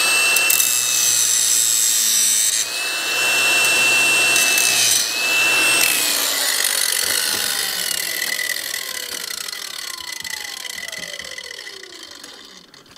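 Angle grinder cutting a notch into a steel bolt clamped in a vise, its high motor whine dipping twice as it bites under load. About six seconds in it is switched off and winds down slowly, the pitch falling as the disc coasts to a stop.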